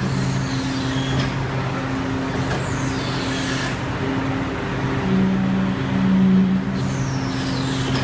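Trailer moving-floor (walking floor) drive running steadily as its aluminium slats cycle: a machine hum with a few steady tones that shift in steps, briefly louder twice past the middle, now running smoothly after adjustment.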